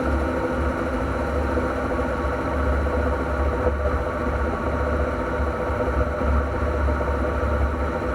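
NP231J transfer case running with the vehicle's engine, a steady whine over a low rumble: a noise the owner puts down to the transfer case, its cause not yet known.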